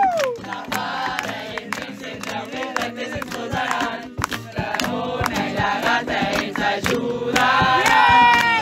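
A group of young voices singing a Catalan song together, with acoustic guitar and hand-clapping keeping the beat.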